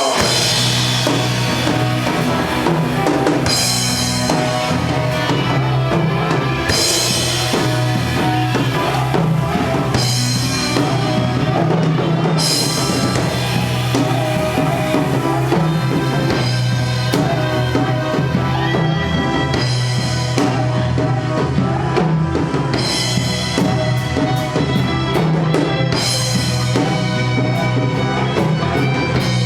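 Psychedelic rock band playing live, an instrumental passage with no vocals: a drum kit with cymbal crashes every few seconds over a steady bass line, and quick even strokes on the cymbals near the end.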